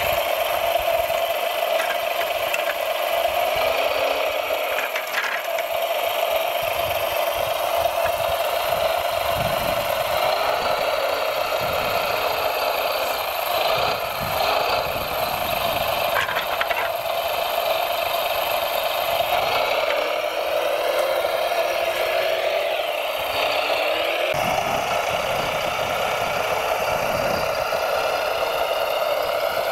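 Radio-controlled hydraulic model trucks and machines running: a steady whine throughout, with motor tones rising and falling in pitch several times and a few short knocks.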